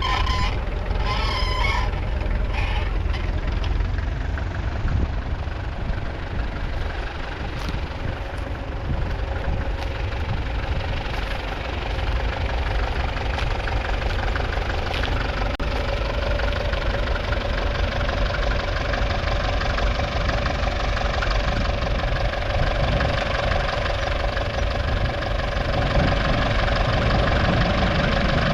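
The 3.3-litre four-cylinder diesel engine of a 1958 Massey Ferguson 65 MK1 tractor running steadily, growing a little louder near the end.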